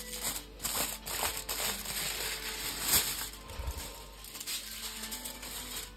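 Aluminium kitchen foil being peeled off a baking tray and crumpled: a crackling rustle full of small sharp crinkles, busiest in the first three seconds and then tailing off.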